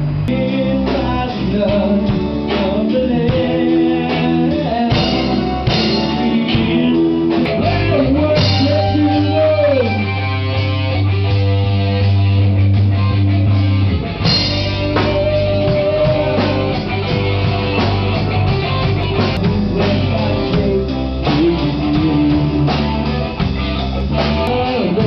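Band music with guitar and drums and a singing voice.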